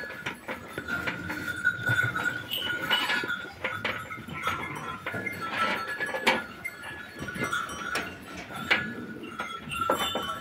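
Sheep feeding at a straw-filled trough: irregular crunching and rustling of straw as they eat, with repeated light metallic clinks.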